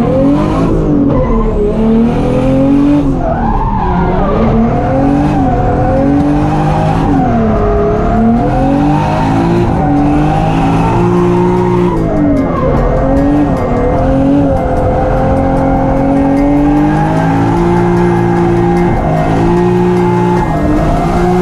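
Car engine revving hard, its pitch climbing and dropping again and again, with tires squealing as in drifting.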